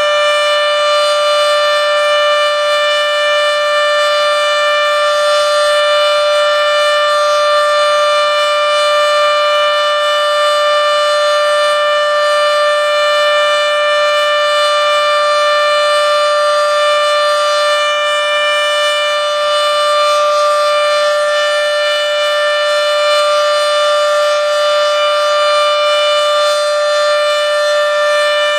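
Federal Signal Model 7B outdoor warning siren sounding a steady alert: one extremely loud held tone at a constant pitch, running short of its full pitch.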